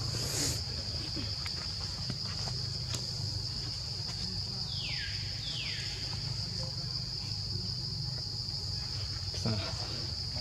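Insects in the forest keeping up a steady, high-pitched, unbroken drone, with two short downward-sliding calls about five seconds in.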